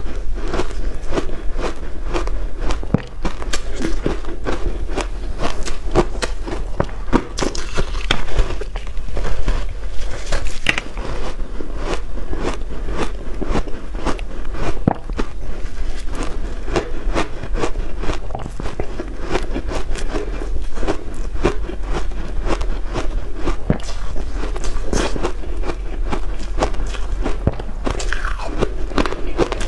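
Shaved ice coated in matcha green tea powder being bitten and chewed close to the microphone: a dense, continuous run of crunches.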